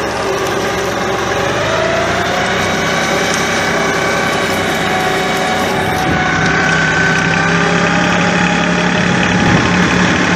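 Massey Ferguson 1433 compact tractor's diesel engine running steadily under load as it drags a skidded log up a steep grassy hill, growing a little louder about six seconds in.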